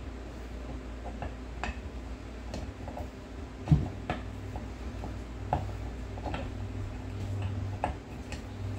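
Irregular metal clicks and knocks as the aluminium gear case cover of a GY6 150cc scooter engine is worked back onto the engine case, with one louder knock about three and a half seconds in. A steady low hum runs underneath.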